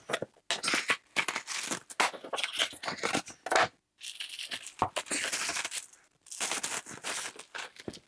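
Speaker packaging being opened and handled: cardboard and plastic wrapping torn, scraped and rustled in irregular bursts, with a few sharp clicks and abrupt cuts to silence.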